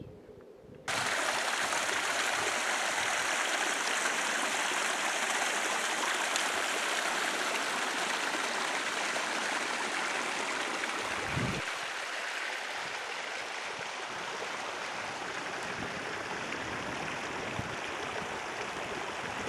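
Steady rushing of a mountain stream, starting abruptly about a second in and continuing evenly.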